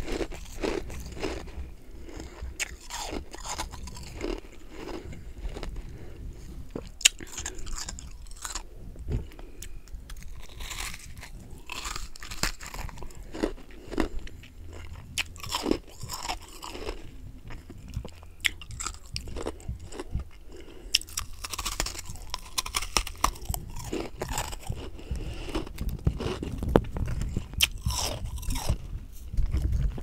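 Close-miked crunching and chewing of chunks of humidifier freezer frost: a steady run of sharp, irregular crunches as the frost is bitten and chewed.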